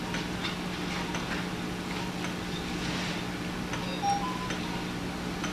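Operating-room equipment giving a steady low hum, with scattered irregular clicks from instruments and a brief electronic beep about four seconds in.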